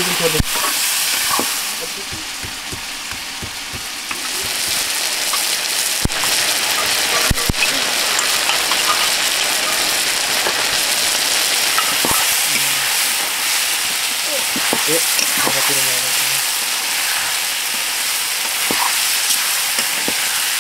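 Chicken pieces sizzling in hot oil in a shallow metal pan while a metal ladle stirs them, scraping against the pan. A couple of sharp ladle knocks come around the middle, and the sizzle drops briefly about two seconds in.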